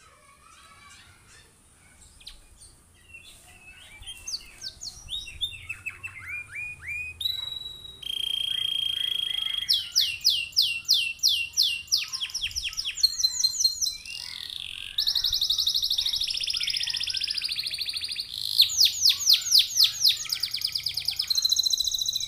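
Domestic canary singing. Soft scattered chirps build into a long, loud song of falling whistled sweeps, a held whistle, bursts of rapid repeated notes and a long rolling trill, ending in fast repeated notes.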